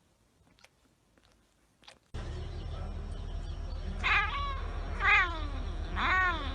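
A cat meowing three times, about a second apart, each call rising then falling in pitch, over a steady low hum. Before the meows, a couple of seconds of faint clicks.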